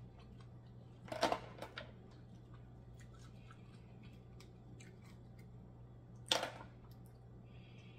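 Cooked black mussel shells handled by hand: faint clicks as a shell is pried apart, with two short, louder crackling scrapes about a second in and near the end.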